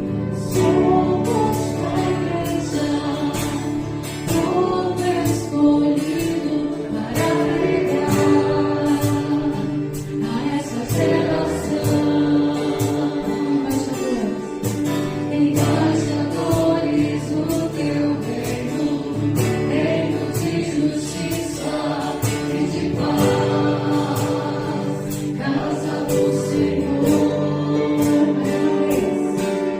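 Gospel worship song: several voices singing together over guitar and a steady percussion beat.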